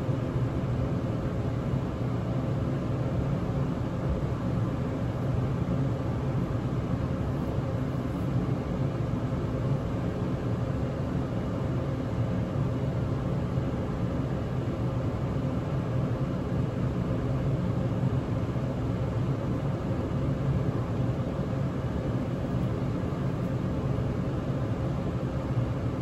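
Steady low background hum and rumble, unchanging throughout, with no distinct events.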